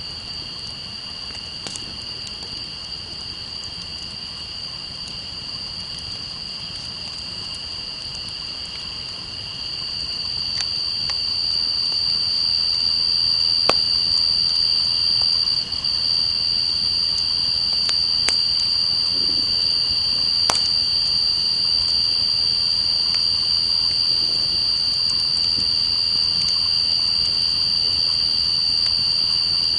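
A steady, high-pitched chorus of night insects holding two shrill tones, swelling louder about ten seconds in, over the soft crackle of a campfire with a few sharp pops.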